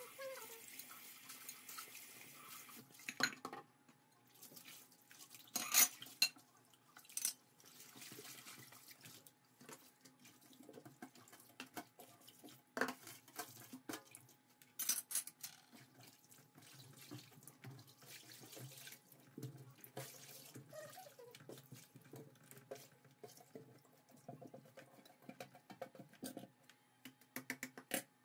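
Metal kitchen tongs clicking and clinking against a nonstick pan and a plate as meatballs are lifted out of their sauce, with a few louder knocks and wet sounds of the sauce in between.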